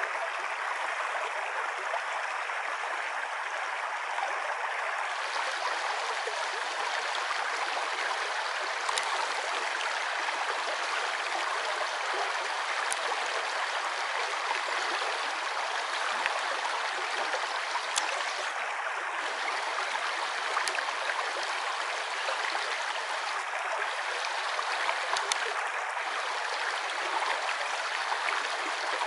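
A river flowing over a shallow stretch: a steady, even rush of running water, with a few faint ticks.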